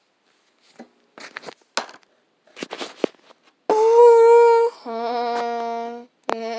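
A few soft rustles and knocks as the camera is handled. Then a person's voice holds two long notes: a loud high one for about a second, then a lower steady one that stops just before the end.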